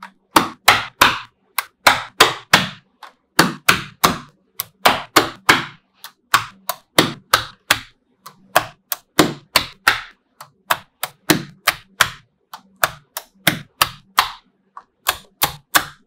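Blocks of small neodymium magnet balls snapping onto a magnet-ball wall: sharp metallic clicks, about three a second in an uneven rhythm, some in quick pairs.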